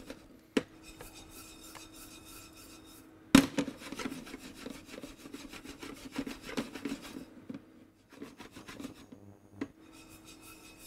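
Dry rice grains toasting in a flat frying pan, shaken so they slide and rustle across the hot metal, with the pan knocking against the hob. The loudest knock comes about a third of the way in and is followed by a few seconds of dense small rattling. A faint steady hum runs underneath.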